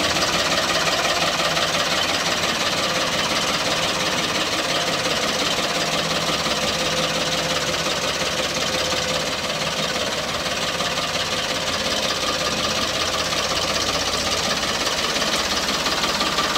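Farmtrac 55 tractor's diesel engine running steadily with a rattling, knocking beat.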